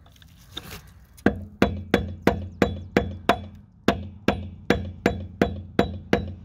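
Hammer striking a flat screwdriver held against a wheel lock nut's sleeve, a steady run of sharp metallic blows at about three a second with a brief pause midway, each with a short ring. The blows are chipping the sleeve back off the lug nut.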